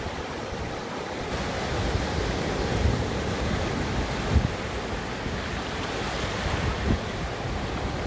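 Surf breaking and washing in the shallows, with wind gusting on the microphone and a couple of brief low bumps.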